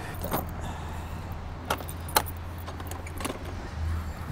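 A few sharp metallic clicks and rattles as the folding entry door of an old, rusted bus is worked open by hand, over a low steady hum.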